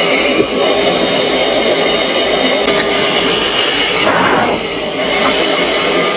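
Jet aircraft engine noise, loud and steady, with a thin wavering high whine that comes in twice and a short falling tone about four seconds in.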